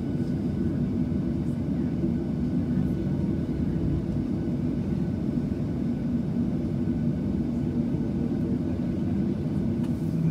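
Boeing 737-700's CFM56 jet engines running at low taxi power, heard from inside the cabin as a steady low rumble with a hum of several low tones.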